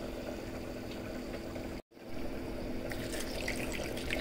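Marinated chicken sizzling in melted butter in a steel pot: a steady hiss over a low hum, with a brief dropout about two seconds in and sharper crackling from about three seconds.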